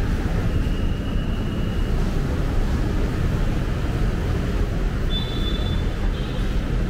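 Steady low rumble of city street traffic, with a faint brief high tone about half a second in and a brighter one about five seconds in.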